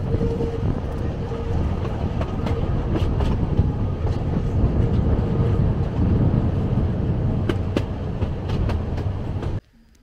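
Train running on rails, heard from on board: a steady rumble with scattered clicks and knocks from the wheels and carriage. It cuts off suddenly near the end.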